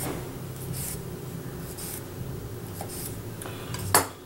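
A chef's knife cutting tomato wedges on a wooden butcher-block board: a scatter of soft scrapes and light taps of the blade on the wood, with one sharper knock near the end.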